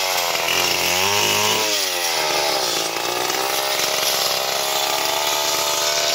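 Stihl two-stroke chainsaw at full throttle ripping a neem log lengthwise, the engine pitch dipping and recovering under load for the first two seconds, then running steadier and higher.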